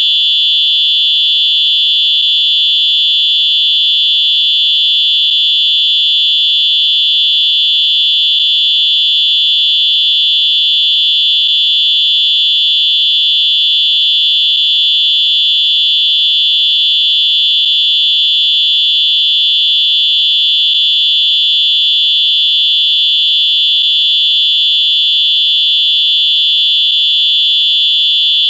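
Electronic whistle sounding one continuous, loud, high-pitched tone without a break.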